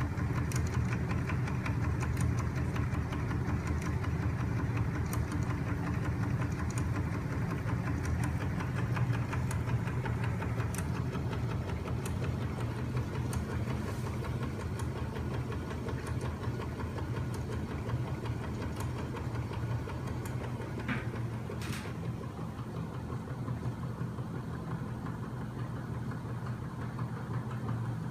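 Home-built magnet engine machine running steadily: its crankshaft, linkages, bearings and flywheels keep up a fast rattle over a low hum, with one brief sharper noise about three-quarters of the way in.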